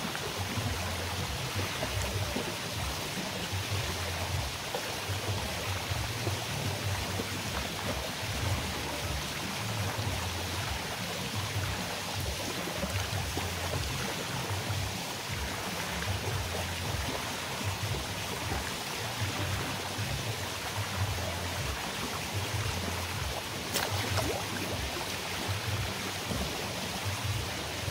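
Steady splashing, rushing water of a swimming pool running on without a break, with faint music underneath.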